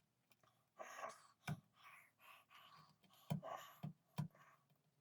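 Faint hand-tool work: a run of short scraping strokes broken by four sharp knocks.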